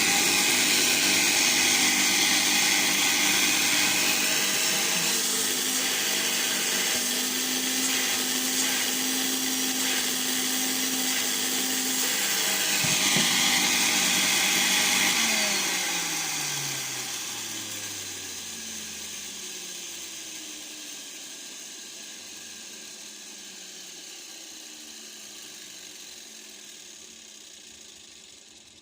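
1985 Hoover Compact S3396 canister vacuum cleaner's 700-watt motor running at full speed with a loud, rough-sounding whine. About fifteen seconds in it is switched off, and the motor winds down slowly, its pitch falling as it fades.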